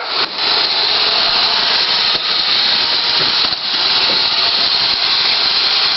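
iRobot Roomba robot vacuum running, a steady whirring hiss from its vacuum motor and brushes.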